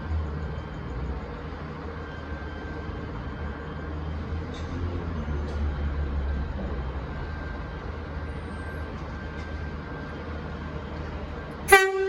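V/Line VLocity diesel multiple unit VL15 pulling out, its underfloor diesel engines giving a steady low rumble. Near the end a short, loud blast of the train horn.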